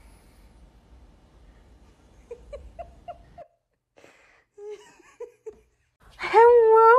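A person giggling in short bursts, then a loud, drawn-out wavering vocal cry near the end.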